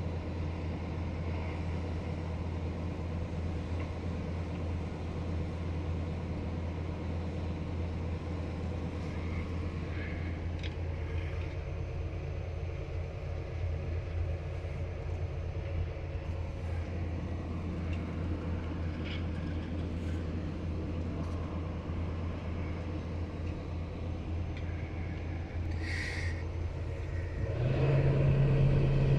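Excavator's diesel engine running steadily at low revs, heard from inside the cab. Near the end it revs up, louder and higher in pitch.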